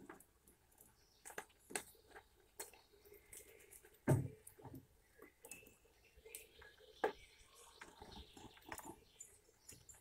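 Eurasian red squirrel rummaging and feeding in a wooden tray of sunflower seeds and shells: scattered sharp clicks and taps of seeds, shells and claws on wood, the loudest about four seconds in and again about seven seconds in.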